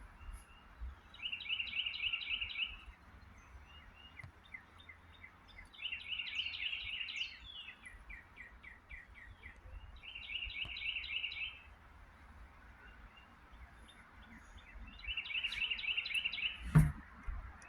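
Birds singing: one bird repeats a fast, high trill about every four seconds, with fainter falling chirps from others in between, over a low wind rumble. A single sharp knock comes near the end.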